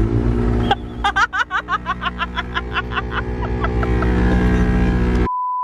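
Vehicle cabin drone with music playing, cut off near the end by a steady high-pitched censor bleep.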